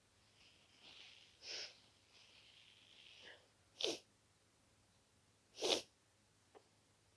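A person with a head cold sniffling through a congested nose: three short, sharp sniffs about two seconds apart, the last the loudest. Over the first three seconds there is a softer, drawn-out breath through the nose.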